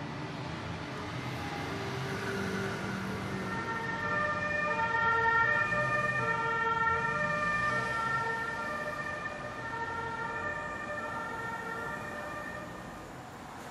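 Ambulance siren sounding a two-tone call, switching back and forth between a higher and a lower pitch. It grows louder to a peak about five to six seconds in and then fades, over a low road-traffic rumble.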